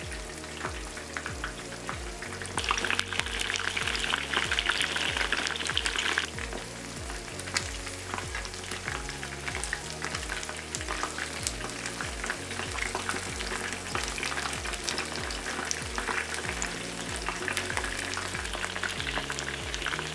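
Batter-coated chicken wings shallow-frying in oil, a steady sizzle full of small pops and crackles, louder for a few seconds about three seconds in. The oil has just been turned up to high heat for the final crisping stage.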